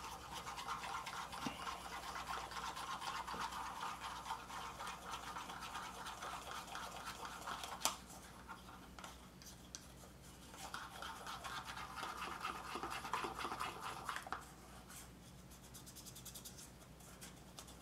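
Cocoa powder and vinegar being stirred briskly with a metal utensil in a small cup: a faint, fast scraping rattle. It eases off about eight seconds in, just after a single tap, picks up again a few seconds later, then stops a few seconds before the end.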